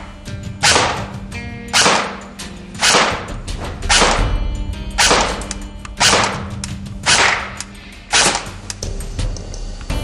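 CYMA-built Colt M4 CQB electric airsoft rifle firing single shots, about one a second for eight shots, each a sharp crack. Background music with steady tones plays underneath.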